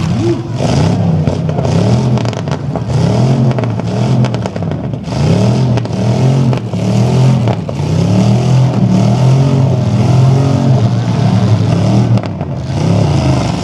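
Demolition-derby pickup truck engines revving hard over and over, the pitch rising and falling about once a second as the trucks push and ram each other.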